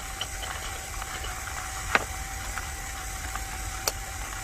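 Two short sharp clicks, the louder about two seconds in and a lighter one near the end, as the parts of a metal moka pot are handled and fitted together, over a steady low background rumble with a faint steady hum.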